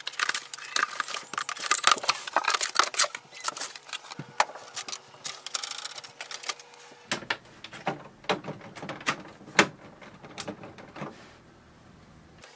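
Scissors cutting a cardboard box open, then cardboard and packing material rustling and scraping as they are pulled away. About halfway through this gives way to a run of separate sharp clicks and knocks as pieces are handled.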